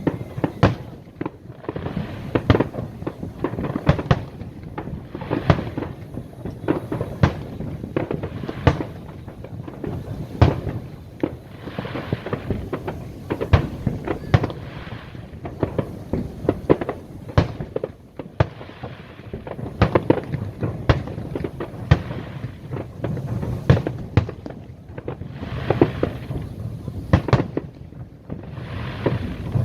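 Aerial fireworks display: shells bursting one after another in quick, irregular succession, sharp bangs over a continuous crackling rumble.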